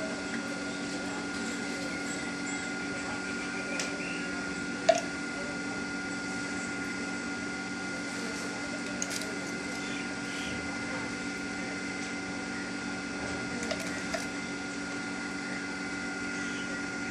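1 HP monoblock sump pump motor running steadily with an even electric hum and whine, with a single sharp click about five seconds in.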